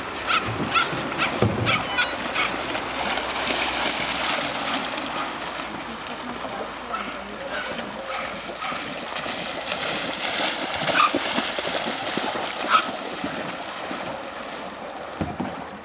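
Dog barking in quick succession, about two or three barks a second, then splashing as the Appenzeller Sennenhund runs through shallow river water, with a couple of single barks near the end.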